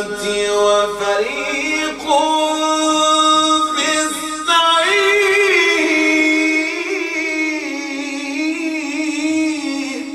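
A man's voice in melodic Quran recitation, chanting long held notes that waver and glide in pitch, with short breaks between phrases.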